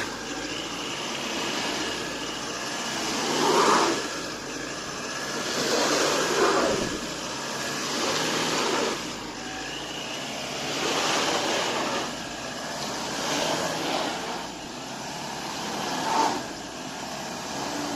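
Vehicle engine on a muddy logging road, rising and falling in repeated surges about every two to three seconds.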